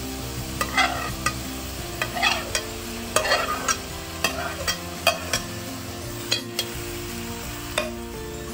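A steel spoon scraping and tapping cooked rice off a plate into a hot stainless steel wok, with a dozen or so irregular clinks, over a low sizzle of vegetables frying.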